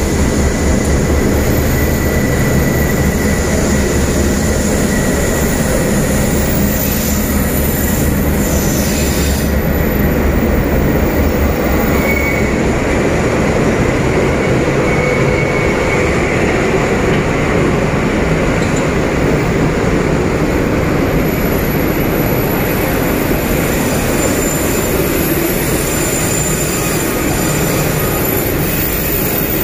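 A D12E diesel locomotive passes close by inside a railway tunnel, its engine throbbing heavily for the first ten seconds or so. Freight wagons then roll past with a steady, echoing wheel-on-rail rumble and brief faint wheel squeals.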